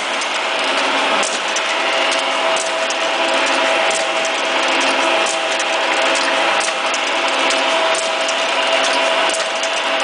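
Automatic can seaming machine running steadily: a constant motor hum with frequent light metallic clicks as filled cans are carried around its rotary feed wheel.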